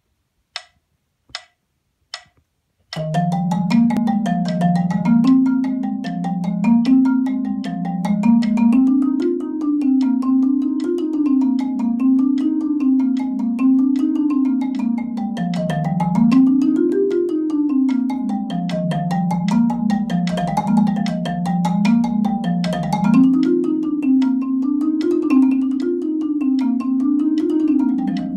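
Marimba played with two mallets: scales running up and down in quick, even notes. It starts about three seconds in, after three evenly spaced sharp clicks.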